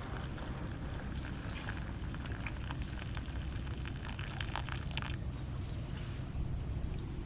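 Water lapping and dripping softly, with scattered small clicks over a low steady hum.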